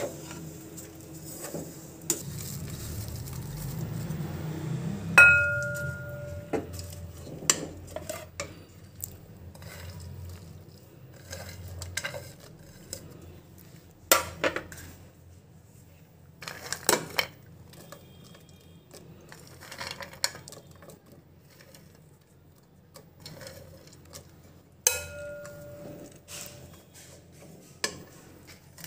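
Metal ladle stirring and scraping through thick sweet vermicelli in a metal cooking pot, with scattered knocks and clinks of metal on metal. Twice, about five seconds in and again near the end, the ladle strikes the pot sharply and it rings on with a clear tone.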